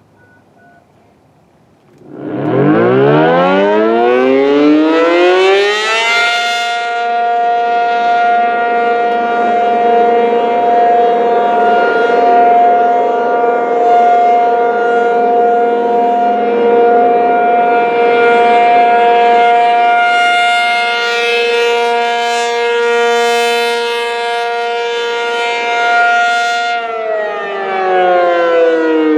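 Outdoor warning siren winding up about two seconds in, holding a steady tone, then starting to wind down near the end: the steady alert signal of a monthly siren test.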